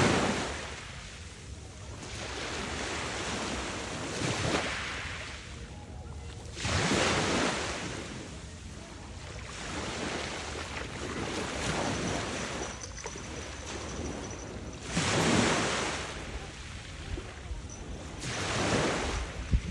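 Small waves breaking on a sand and pebble shore, each surge of foam swelling and washing back, about five times, the loudest at the very start and about 15 seconds in.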